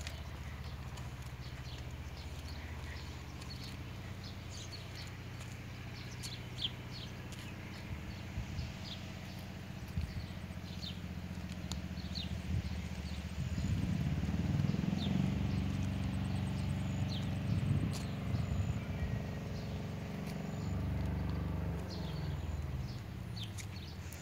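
Small birds chirping and twittering in short calls over a steady low rumble; a motor grows louder a little past the middle, runs for several seconds, and fades near the end.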